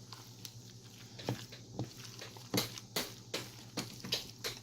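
A utensil folding a thick, chunky dip in a mixing bowl, with irregular clicks and knocks as it strikes the bowl, more frequent in the second half.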